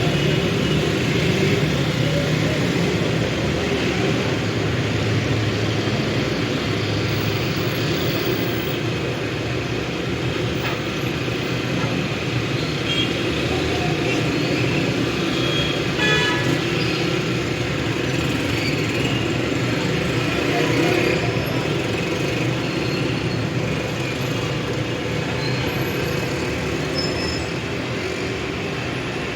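City street traffic ambience: a steady mix of cars and other vehicles passing, with a short horn toot about halfway through.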